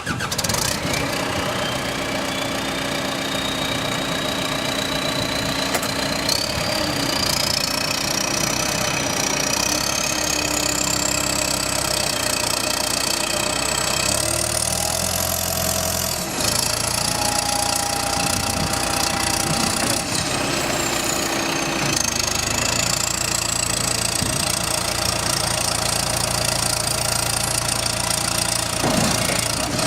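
2008 John Deere backhoe's diesel engine catching right at the start and then running steadily, with a high whistle that climbs slowly in pitch, drops back about two-thirds of the way through, and climbs again.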